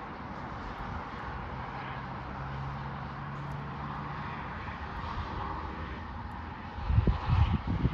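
Distant city traffic hum heard from high ground, with a faint steady low engine drone for a few seconds. Near the end, wind buffets the microphone in loud gusts.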